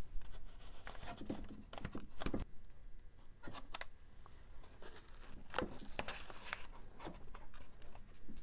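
Masking-tape strips being pulled over a balsa wing's leading-edge sheeting and pressed down, with scattered light crinkles, taps and scrapes of handling.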